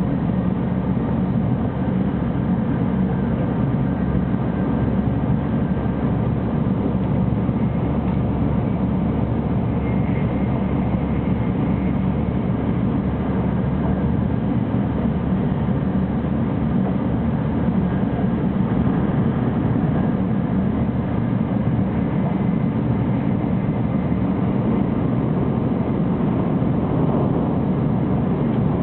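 300 Series Shinkansen running at speed, heard from inside the passenger cabin: a steady low rumble with faint high whines over it.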